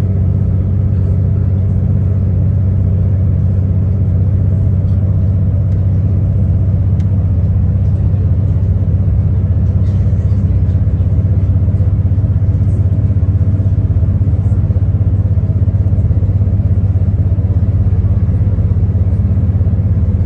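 Inside the carriage of a V/Line VLocity diesel railcar moving along the line: a steady low drone and rumble from its diesel engine and running gear, holding an even level throughout.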